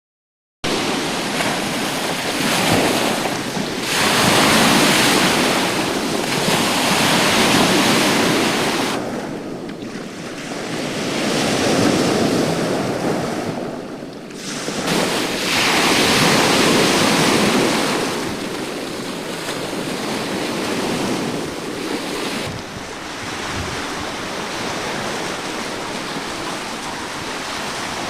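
Sea surf washing onto the shore, swelling and falling back every few seconds, with wind buffeting the microphone.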